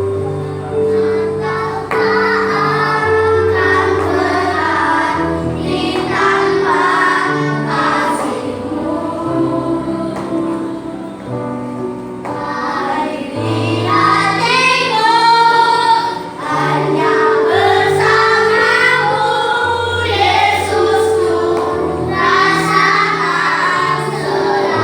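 A group of children singing a Christmas hymn together over a keyboard backing of held bass notes and chords.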